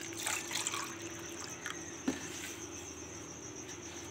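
Water poured from a glass into a bowl of gram-flour pakora mix, splashing mostly in the first second or so, with a single light knock about two seconds in.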